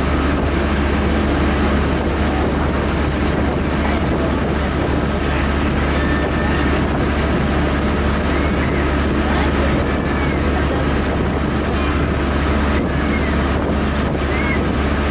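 Resort passenger launch's engine running steadily at cruising speed, a constant low drone heard from aboard, with wind and water noise over it.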